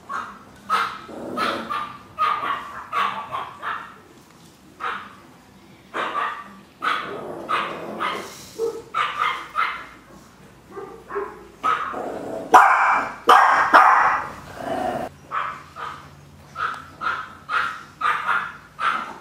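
Chihuahuas yapping: short, sharp barks repeated a few times a second, with a louder, busier run of barking about two-thirds of the way through.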